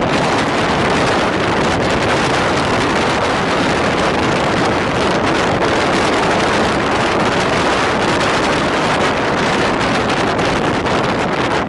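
Steady rush of wind and running noise from a moving passenger train, with wind buffeting the microphone.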